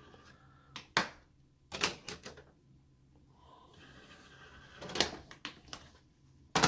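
A disc being loaded into a Blu-ray player: a handful of separate sharp clicks and knocks, spread over several seconds.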